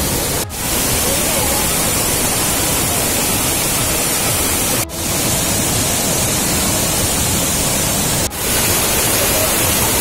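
Waterfall pouring onto rocks and churning into a pool, a loud, steady rush of water. It drops out briefly three times where separate recordings are joined.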